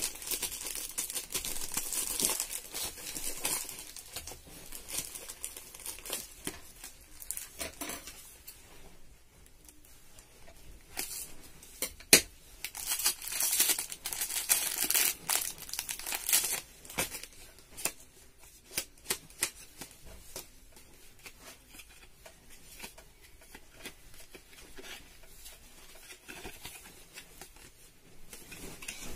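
Cellophane wrapping on packs of card envelopes crinkling and tearing in irregular bursts as the packs are handled and one is pulled open, with one sharp snap partway through.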